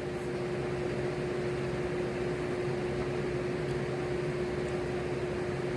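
Electric fans running: a steady whooshing noise with a constant low hum.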